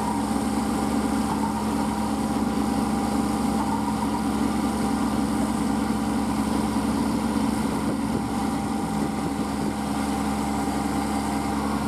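Kubota compact tractor's diesel engine running at a steady, unchanging speed under load as it tows a second tractor stuck in deep mud.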